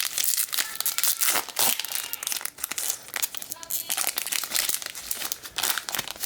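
Crinkling and tearing of a foil trading-card pack wrapper as a pack of baseball cards is ripped open and handled, a dense run of crackles.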